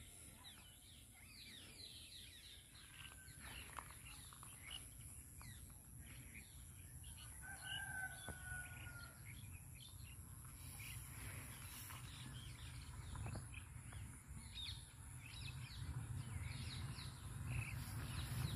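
Faint rural ambience: a rooster crows once, about eight seconds in, over scattered small-bird chirps and a low steady hum.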